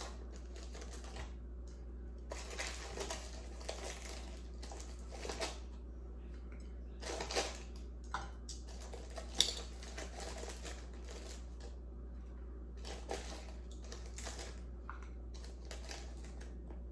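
Scattered light clicks, rustles and clatter from food and kitchenware being handled at a counter, with a few louder bursts, over a steady low hum.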